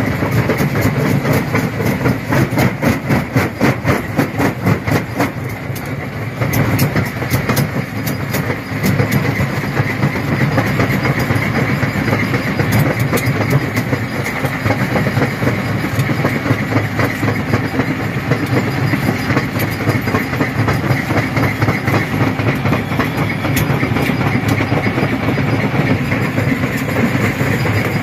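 Jaw crusher running under load, crushing stone slabs between its jaws with a fast, steady rhythm of knocks.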